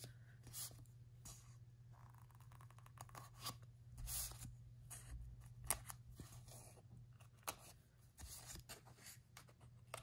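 Faint rustling and shuffling of paper as slit planner pages are handled and fitted back in, with scattered small clicks and scrapes. A low steady hum lies underneath.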